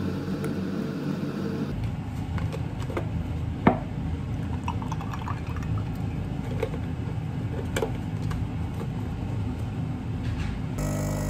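Milk pouring over ice cubes in a ceramic mug, with a few sharp knocks and a run of small clicks from the ice, over a steady low hum. Near the end an espresso machine pump starts humming.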